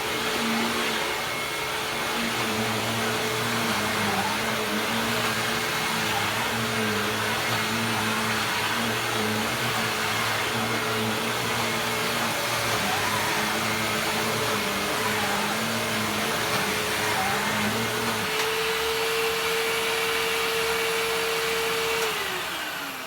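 Hoover WindTunnel Self-Propelled Premium upright vacuum cleaner running with a steady rushing drone and a humming motor tone. A lower pulsing hum drops out about three-quarters of the way through, and the motor tone then holds steadier. Near the end it is switched off, and its pitch falls away as the motor winds down.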